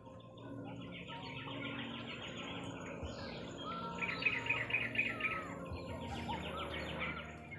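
Birds singing: three bursts of rapid trilled notes, each a second or two long, with a few short whistled notes between them. A low steady hum runs underneath.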